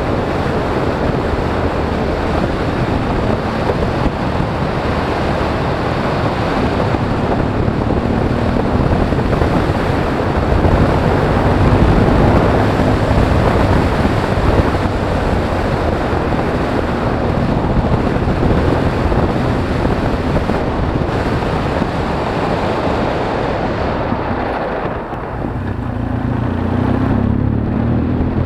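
Motorcycle riding along a road: steady wind rush over the microphone with the engine running underneath. Near the end the wind eases and the engine's low note comes through more clearly.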